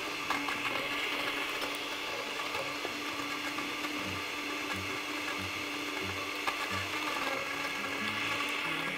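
Countertop blender running steadily, blending the pisco sour mix with freshly added ice to chill it, with a steady hum and irregular low knocking through it.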